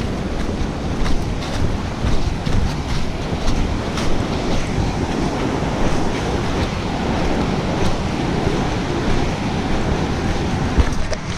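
Steady rushing of a small rocky stream running over rapids, with footsteps crunching through dry leaf litter.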